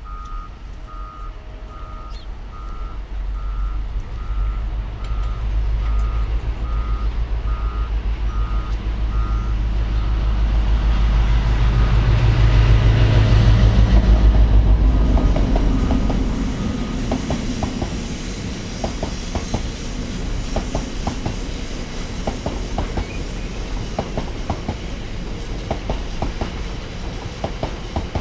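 A train passes at speed. A heavy low engine rumble builds to its loudest about halfway through as the locomotive goes by, then gives way to regular clacking as the wheels of the following vehicles run over the rail joints. A steady series of short beeps sounds through the first ten seconds or so.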